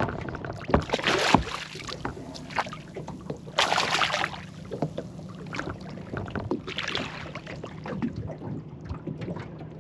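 Scattered knocks, scrapes and rustling from handling a freshly landed flathead and gear aboard a small boat, with short noisy bursts about a second in, near four seconds and near seven seconds, over a steady low hum.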